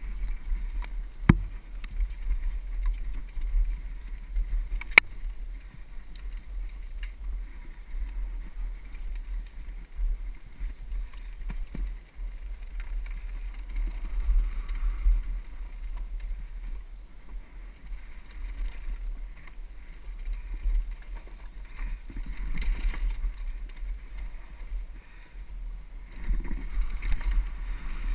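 Mountain bike riding down a forest trail, heard through a helmet-mounted camera: a steady low wind rumble on the microphone with bike and trail rattle, and two sharp knocks, about a second in and about five seconds in.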